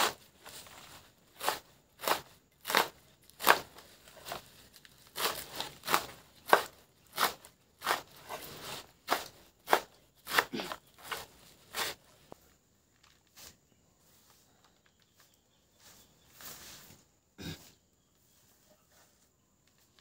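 A kitchen knife chopping through a heap of leafy greens on a banana leaf over a wooden board, in steady strokes about every half to one second. The chopping stops about twelve seconds in. A few light taps follow, then one heavier knock near the end.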